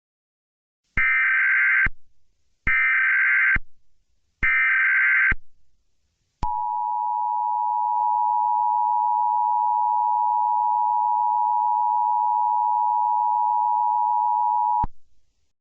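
Emergency Alert System broadcast tones: three bursts of warbling SAME header data, each just under a second, then the steady two-tone EAS attention signal (853 and 960 Hz) held for about eight seconds and cut off sharply.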